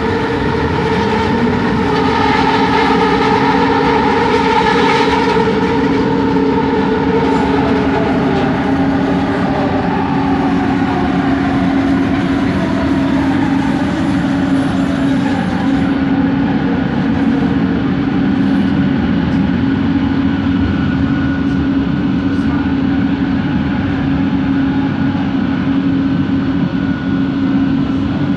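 Kelana Jaya Line train's motor noise heard from inside the carriage: a steady hum with a strong low tone over running rumble. Higher whining tones slowly sink in pitch through the first half. This is the original motor sound, which the uploader calls weird.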